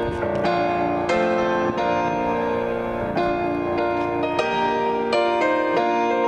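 Gentle piano music, with sustained chords that change about once a second.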